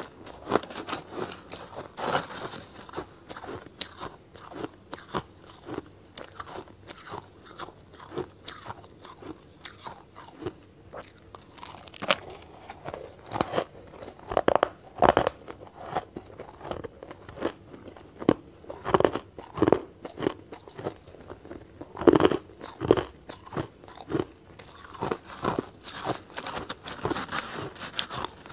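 Close-miked crunching and chewing of shaved ice: a dense, irregular run of sharp crunches as the ice is bitten and ground between the teeth, with louder bites in clusters through the middle and later part.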